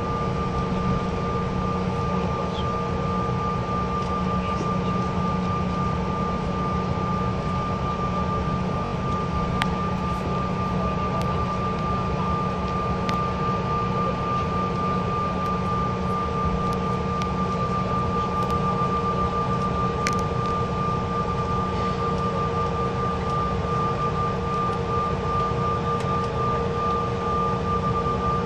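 Cabin sound of a Bombardier CRJ900 regional jet taxiing with its engines at idle: a steady high whine over an even low rumble, with no change in power.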